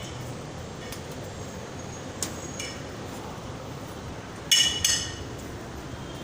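Sharp metallic clinks that ring briefly: a light strike about two seconds in and another soon after, then a louder quick pair of strikes about four and a half seconds in, over a steady background hiss.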